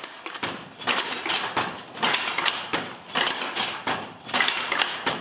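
19th-century Jacquard silk handloom being woven: the shuttle is thrown across the warp and the wooden sley beats up each weft thread, a rhythmic clatter of knocks about once a second.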